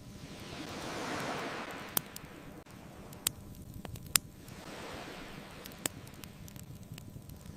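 Ocean waves washing onto a beach, two swells rising and falling, over a crackling wood fire that gives four sharp pops.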